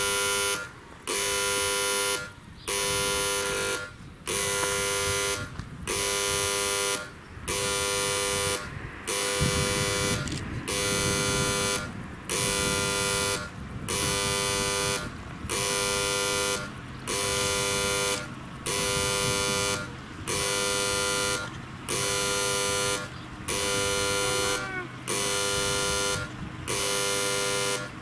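Soviet-made level-crossing warning horn (buzzer) sounding the crossing warning. It gives long buzzing blasts about every second and a half, each followed by a short gap.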